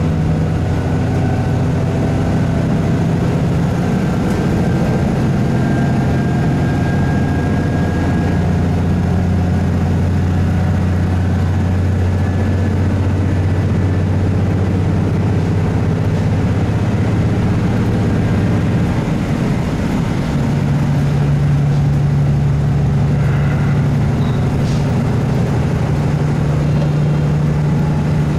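Onboard running sound of a KiHa 75 diesel railcar: its Cummins diesel engine drones steadily along with the hum of the running gear. The engine note changes about twenty seconds in, settling on a higher tone.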